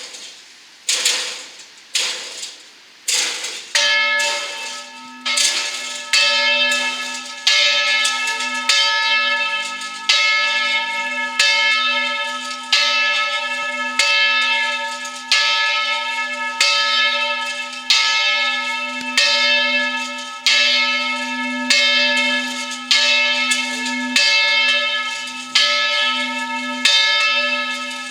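Church bells ringing, with strokes coming evenly about every 1.3 seconds. The first few strokes are thinner; from about four seconds in, each stroke rings with a full tone and a low hum that carries on between strokes.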